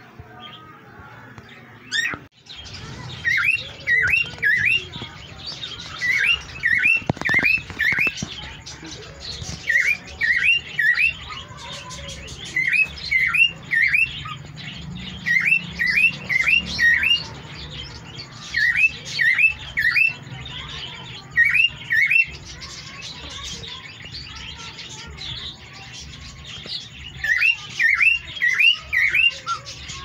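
Cockatiel chirping: short, sharp calls in quick runs of three or four, repeated every second or two.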